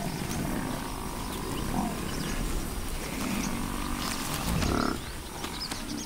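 Cape buffalo grunting low a few times, with a fine crackle of dry grass as they graze.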